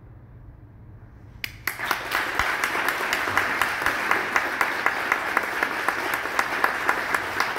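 The last low note of two cellos fading out, then audience applause breaking out suddenly about a second and a half in and carrying on steadily with many sharp claps.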